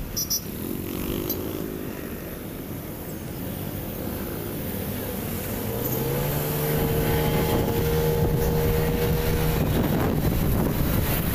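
Road and wind noise from a moving vehicle, with an engine hum that rises in pitch about six seconds in and then holds steady for about four seconds, as when a vehicle accelerates and settles at speed.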